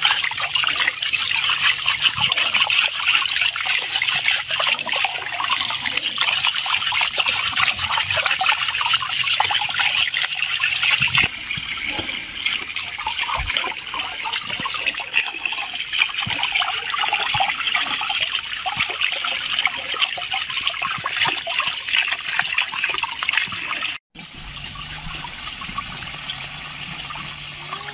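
A stream of running water pouring into a steel basin and splashing over hands and a pork leg being washed. It is steady throughout, a little softer after about eleven seconds, with a brief break about twenty-four seconds in.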